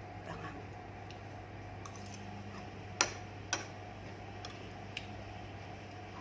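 Eating at a table: a few sharp clicks and taps of tableware and food, the loudest about three seconds in with a second half a second after it, over a steady low hum.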